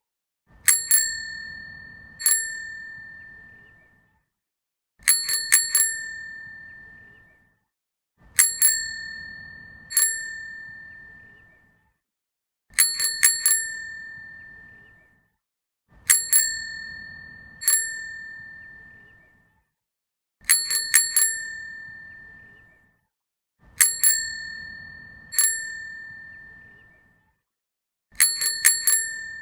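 Bicycle bell rung again and again: a quick run of two or three dings followed by a single ding, repeated about every three to four seconds. Each ding is a clear, high ring that fades away over a second or two.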